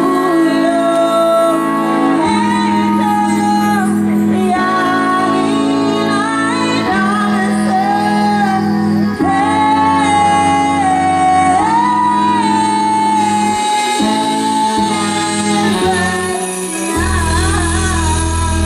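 Live Afrobeat band music with a woman singing the lead melody over held bass notes. Near the end a heavy kick drum and deep bass come in.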